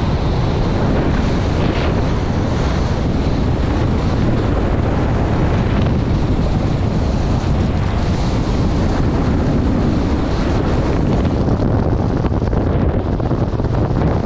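Steady rush of wind on the microphone mixed with road noise from a car driving at speed.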